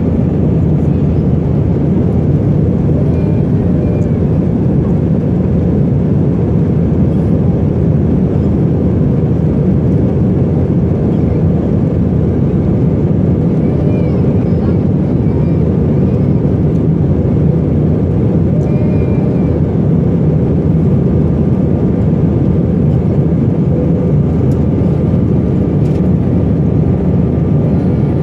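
Jet airliner cabin noise in flight: a loud, steady low drone of the engines and rushing air, heard from a window seat over the wing.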